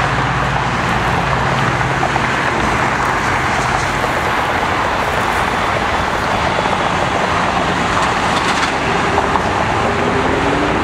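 Jet aircraft engine noise: a steady, loud rush of sound, with a low hum that fades out about four seconds in and a faint tone that rises in pitch near the end.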